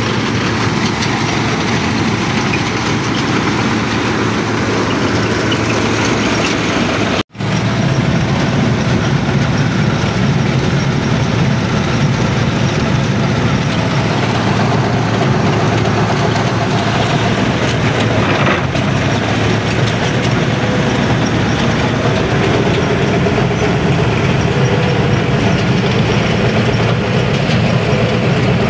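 New Holland 8080 combine harvester running steadily while cutting rice: the diesel engine with the clatter of the reel and cutter bar, loud and unbroken. A brief break about seven seconds in, after which the machine is heard from inside the operator's cab, with more low rumble.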